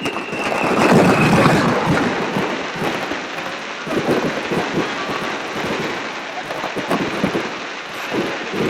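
Fireworks: a descending whistle that dies out about a second and a half in, under a burst and a long rain of crackling stars, with further low bursts around four, seven and eight seconds in.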